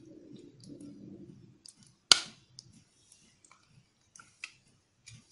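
Kitchenware knocking once, sharply, against a ceramic plate about two seconds in, followed by a few faint ticks.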